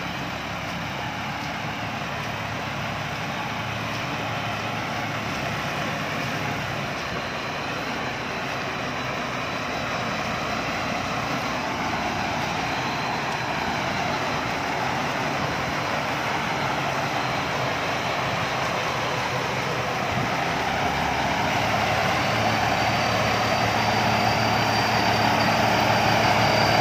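Rice combine harvester's engine and machinery running steadily, a constant mechanical din that grows gradually louder.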